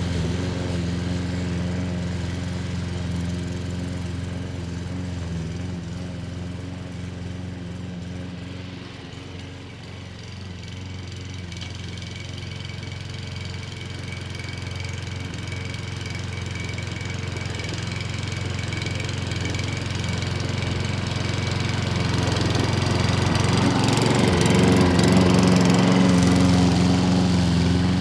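Webb WER510SP Classic petrol rotary lawn mower's 173cc four-stroke OHV engine running at a steady speed. It fades somewhat, then grows louder toward the end, loudest about 25 seconds in.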